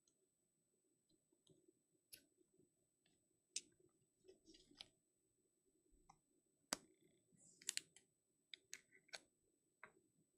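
Faint handling of trading cards: irregular sharp clicks and ticks as the cards are flicked, slid and tapped against each other, with brief quiet stretches between.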